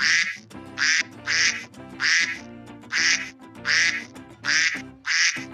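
Duckling quacking: about eight short calls at an even pace, over background music.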